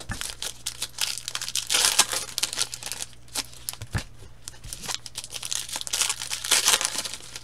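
Football card pack wrappers being torn open and crinkled by hand: a run of irregular crackling rips, loudest twice, about two seconds in and again around six seconds.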